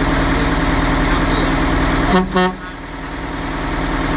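1985 Peterbilt's 8V92 Detroit two-stroke V8 diesel idling with a fast, even pulse. Just past two seconds in, a horn gives one short toot of about half a second.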